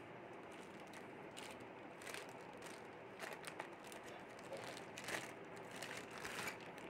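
Clear plastic packaging bag crinkling and rustling in short, irregular crackles as it is handled, over a steady faint hiss.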